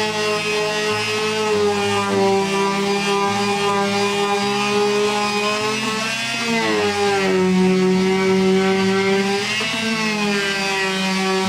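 Electric palm sander running steadily against the wood of a birdhouse, knocking down raised wood fibres before painting. Its motor pitch dips briefly about halfway through and again near the end.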